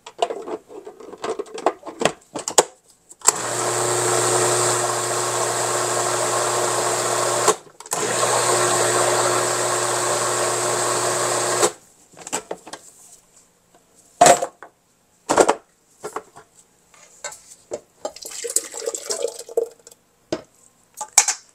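Food processor running steadily, pureeing cooked zucchini soup, in two runs of about four seconds each with a short stop between them. Bowls and utensils clink and knock before and after.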